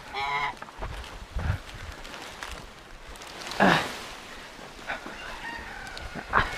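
A rooster crowing, with other pitched calls, and a short loud noise about three and a half seconds in.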